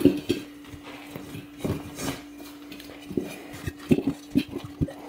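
Irregular knocks and metallic clinks as an ATV tire and new inner tube are pushed and worked by hand onto a two-piece metal rim, over a steady low hum.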